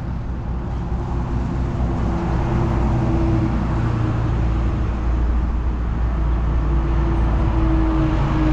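A motor vehicle's engine running, with a low hum that grows gradually louder as it approaches along the road.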